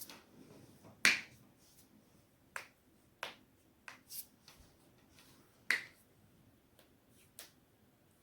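Neck and back joints cracking in a quick series of about ten sharp pops at irregular intervals. The loudest crack comes about a second in and another strong one just before six seconds.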